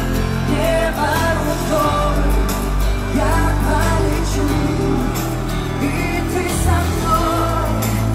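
A woman singing pop into a microphone over a live band, with electric guitar and a heavy bass, heard from the audience.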